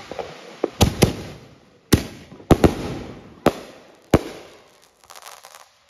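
Consumer aerial fireworks bursting overhead: about seven sharp bangs at uneven intervals, then a brief faint crackle near the end.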